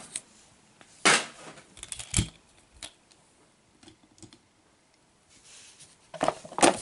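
Small plastic and die-cast toy vehicles being handled and set down: a few separate sharp clicks, the loudest about a second in, then a short cluster of clatter near the end, with quiet gaps between.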